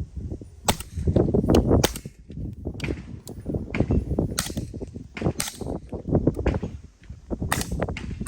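Suppressed .300 Blackout rifles firing 220-grain subsonic rounds: a string of sharp shots roughly a second apart, some louder than others.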